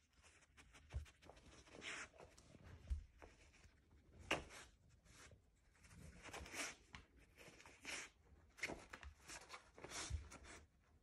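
Dog sniffing and nosing through the pockets of a plush fabric snuffle mat for hidden treats: short, irregular sniffs and soft fabric rustles every second or so, with a few dull bumps.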